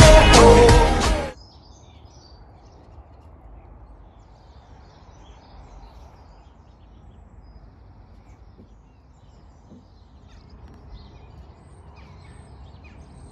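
Music cuts off suddenly just over a second in. After it, quiet outdoor background noise with scattered faint bird chirps.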